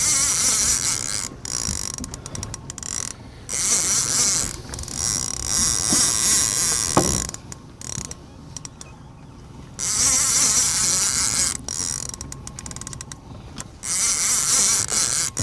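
Saltwater casting reel's drag singing in bursts of a few seconds as a hooked fish pulls line off against it, with quieter gaps between the runs.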